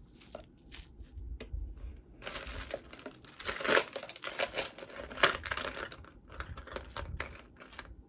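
Irregular crinkling and rustling with scattered short clicks as jewelry is handled, heaviest from about two seconds in.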